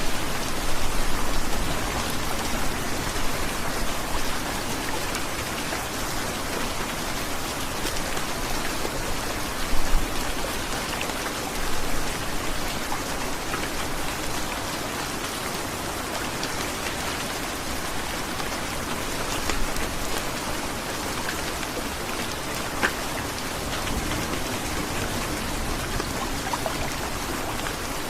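Heavy rain falling steadily, an even hiss of drops on surfaces with scattered sharper drip ticks and a brief louder patter about ten seconds in.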